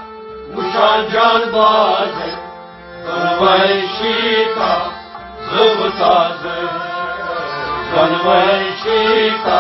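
A Kashmiri Sufi song performed live: harmonium and rabab accompany male voices singing in phrases, with short dips between lines.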